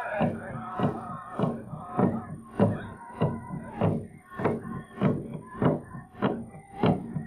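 A drum struck at a steady beat, a little under two strokes a second, continuing on its own as the singing stops at the very start.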